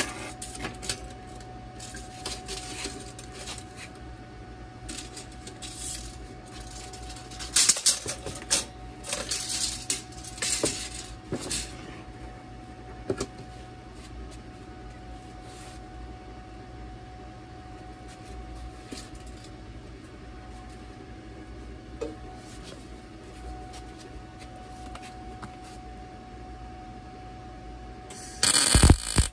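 Scattered clicks and clinks of tools and steel being handled over a steady shop hum, then near the end about a second of loud crackling from a welding arc as a tack weld is struck on the steel ring.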